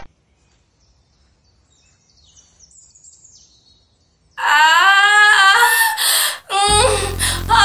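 Near silence with a few faint high chirps, then, a little over four seconds in, a woman's voice crying out loudly in long, sliding wails, the cries of a woman in labour. A low, steady music bed comes in under the cries near the end.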